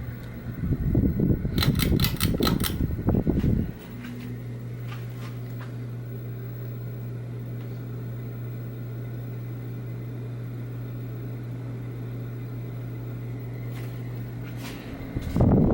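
Union ceiling fan running. A low rumbling noise broken by a quick run of clicks about two seconds in gives way, at about four seconds, to a steady motor hum; the rumble returns near the end.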